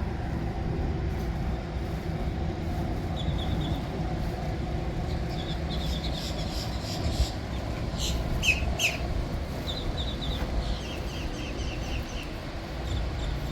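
Steady low mechanical hum and rumble, with short, high, repeated bird chirps over it from about three seconds in.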